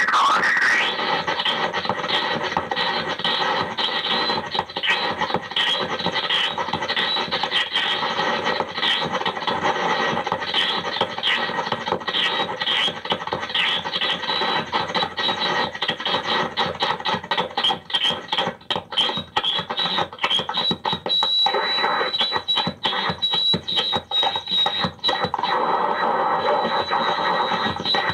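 Lo-fi harsh noise music: a dense wall of squealing, scratchy electronic noise, chopped by rapid stutters and dropouts. A thin, steady high whine holds through the second half.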